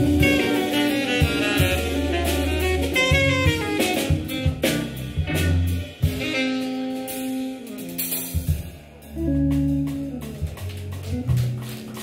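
Live jazz quartet: alto saxophone playing the lead line, with a descending run about four to five seconds in, over organ with sustained bass notes and a drum kit.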